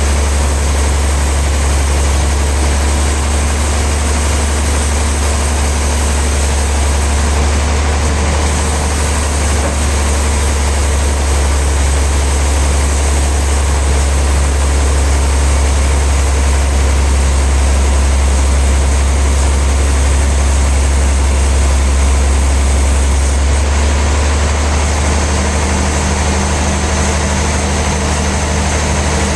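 Heavy sawmill machinery running steadily with a deep, constant engine hum and hiss; its tone shifts slightly near the end.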